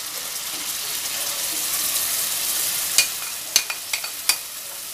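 Tomato, green chilli, ginger and garlic paste hitting hot mustard oil and frying onions, sizzling, the hiss swelling over the first two seconds and then easing. A few sharp clicks near the end.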